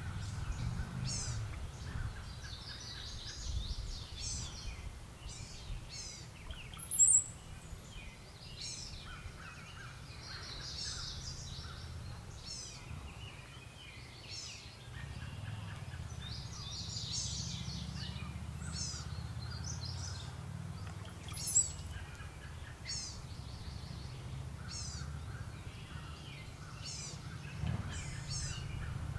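Blue-gray gnatcatchers and brown-headed cowbirds calling: many short, thin, high calls and bursts of chatter, repeated throughout. These are the gnatcatchers' alarm calls in defence of their nest against the cowbirds. Two sharp, very high notes stand out about 7 and 21 seconds in, over a steady low rumble.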